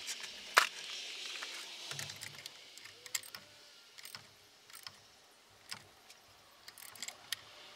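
Irregular sharp metallic clicks and clinks as a Porsche 944 engine is turned over by hand after a new timing belt is fitted, the cam gear and belt rotating slowly.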